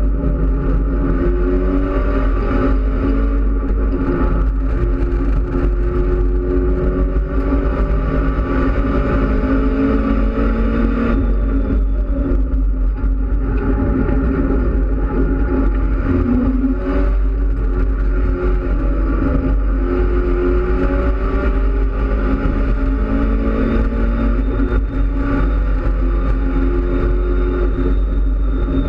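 Mitsubishi Lancer Evolution X race car's turbocharged 2.0-litre four-cylinder engine under hard acceleration, heard from inside the stripped cabin over a constant deep road and cabin rumble. Its pitch climbs and drops back again and again as it pulls through the gears.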